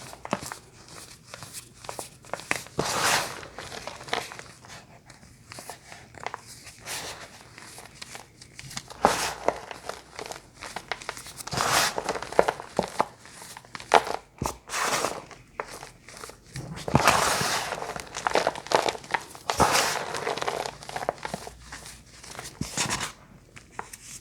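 Crunchy bars being crunched and crinkled, in irregular bursts with sharp cracks and short pauses between.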